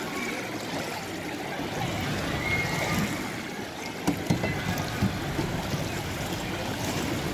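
Water sloshing and churning in a children's boat-ride channel as the little boats circle, a steady wash of noise with a few sharp knocks about four to five seconds in.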